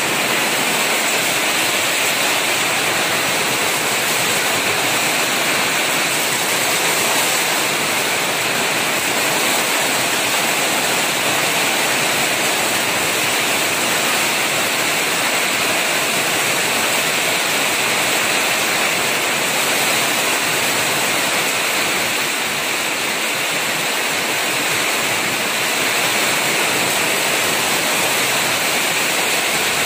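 Heavy rain pouring down in a steady, dense hiss, with no let-up.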